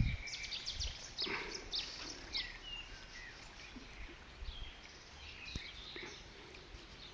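Small birds chirping and calling in short, quick notes, busiest in the first three seconds and thinning out after, over a low steady rumble.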